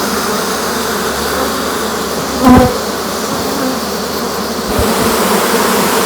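Steady buzzing of a mass of honey bees leaving a hive box, driven out by the acrid fumes of butyric acid on a fume board. The buzz swells briefly and loudly about two and a half seconds in.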